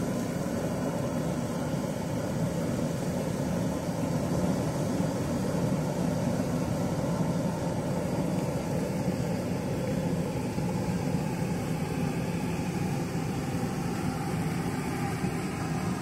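Hot-spring geyser jetting a tall column of water and steam, a steady rushing noise that holds even throughout.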